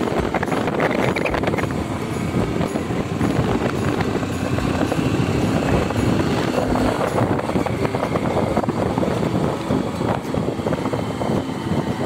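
Wind rushing over the microphone of a moving two-wheeler, with its engine running steadily underneath.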